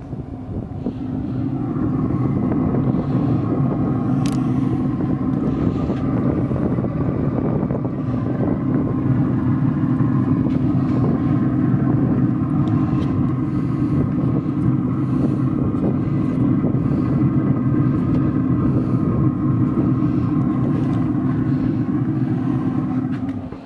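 A steady, loud motor hum with a faint higher whine above it, unchanging until it stops abruptly near the end.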